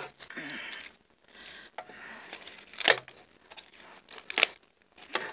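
Clear plastic packaging bag crinkling as it is handled, with two sharp clicks about three and four and a half seconds in.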